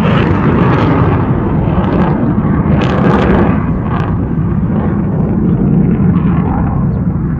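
Jet aircraft engine noise: a loud, steady rumble with brief sharper rushes about three and four seconds in.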